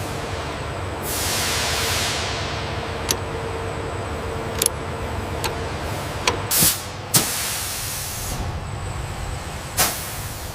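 Steady machine hum in a workshop, with a long hiss of released compressed air about a second in. Then come several sharp clicks and short air bursts from pneumatic tools, the loudest click about seven seconds in.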